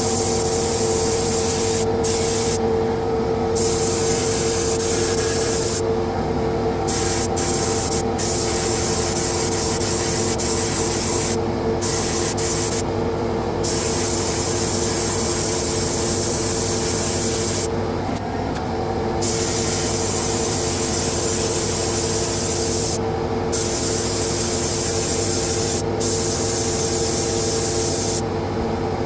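Air spray gun hissing as Cerakote coating is sprayed onto rifle barrels, with the trigger released for short pauses every few seconds. Under it runs a steady machine hum.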